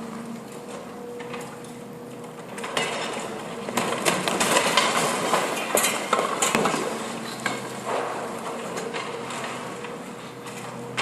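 Demolition excavator breaking concrete: crunching and clinking of broken concrete and debris over the machine's steady hum. The crunching grows louder about three seconds in and eases off near the end.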